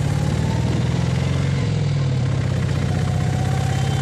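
Auto-rickshaw's single-cylinder engine running steadily as it drives along the road, heard from inside the cabin, its pitch shifting slightly about a second and a half in.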